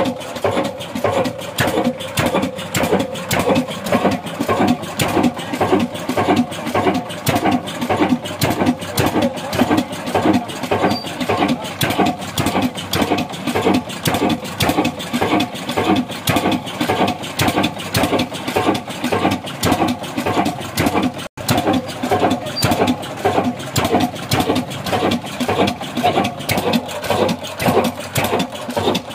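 Old 22/24 BHP stationary engine with a large flywheel running steadily, giving an even, regular beat. The sound drops out for an instant about two-thirds of the way through.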